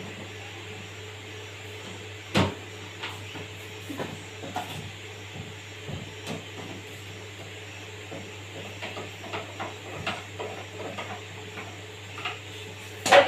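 Scattered clicks and knocks of parts being handled while working on an RO water purifier, with one sharp knock about two seconds in and a cluster of louder knocks at the very end, over a steady low hum.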